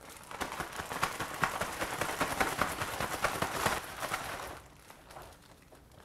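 Plastic zip-top bag crinkling and rustling as it is shaken with a chicken drumstick inside, tossing it in a seasoned flour mix. The rattling stops about four and a half seconds in.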